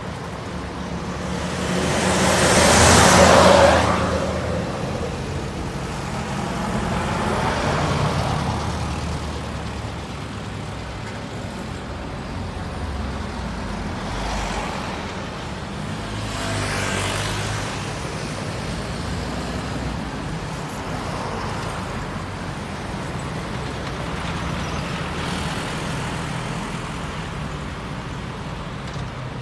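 Road traffic: motor vehicles driving past one after another, each swelling and fading, the loudest going by about three seconds in.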